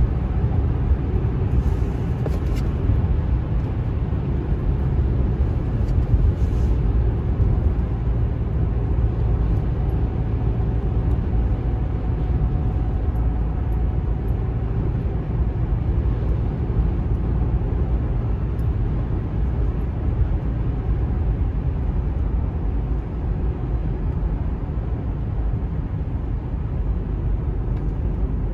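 Car driving at highway speed, heard from inside the cabin: a steady low rumble of road, tyre and engine noise.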